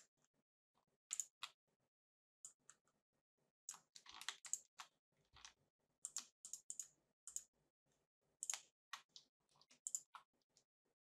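Computer mouse clicking while drawing brush strokes: scattered sharp clicks, some in quick runs of two or three, with short quiet gaps between them.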